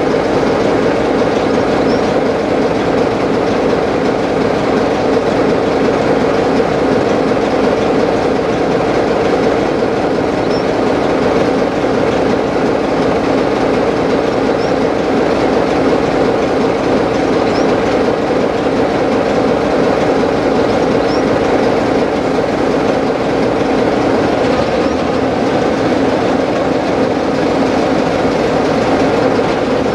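Class 33 'Crompton' diesel locomotive's Sulzer eight-cylinder engine idling close by, a loud steady drone with a constant hum.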